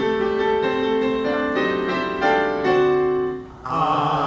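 Piano playing a series of held chords, a few notes changing at each step. Near the end, after a brief dip, voices come in on a held note.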